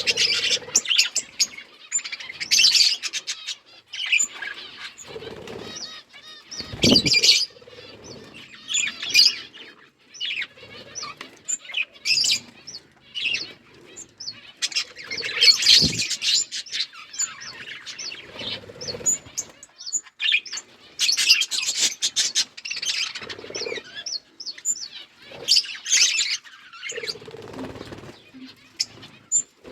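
Pet budgerigars chirping and chattering in quick, broken bursts. Two louder low thumps come through, about a quarter of the way in and again just past halfway.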